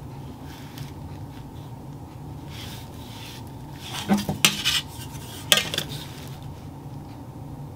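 Metal ruler being lifted and set back down on tissue paper over a cutting mat: a faint paper rustle, then a cluster of light clacks about four seconds in and one more a second later.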